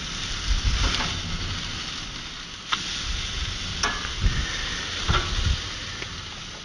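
Ribeye and sirloin steaks sizzling on a hot grill grate, a steady hiss of fat and juices cooking. About halfway in come several sharp clicks as a metal fork knocks against the grate while the steaks are turned and lifted.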